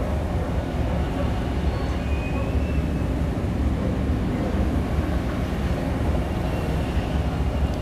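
Engines and twin waterjets of the Churasan, a high-speed passenger ferry, running as it manoeuvres away from the pier, heard across the harbour as a steady low rumble.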